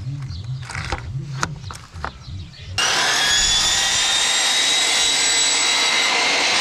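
Electric chop saw motor running at full speed with a steady high whine. It starts abruptly about three seconds in, after some light knocks and clicks.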